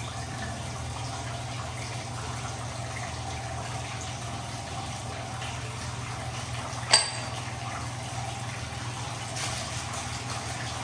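Bath tap running into a filling bathtub, a steady rush of water. About seven seconds in, a single sharp clink of glass with a short ring, as the glass jar of bath salts is handled.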